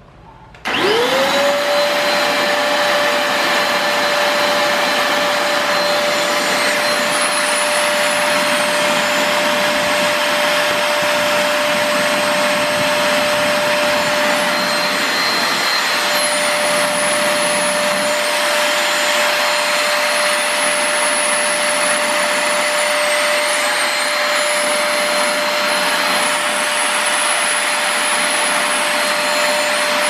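Multilaser HO03 1000 W two-in-1 stick vacuum cleaner switched on about half a second in, its motor spinning up within a second to a steady whine. It then runs steadily with rushing air and an annoying high, wavering whistle over it.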